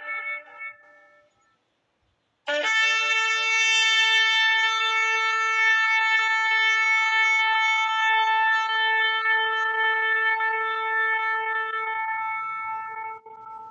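Shofar (ram's horn) sounding one long, steady blast of about eleven seconds, starting about two and a half seconds in. The end of an earlier blast fades out just before it, with a short silence between the two.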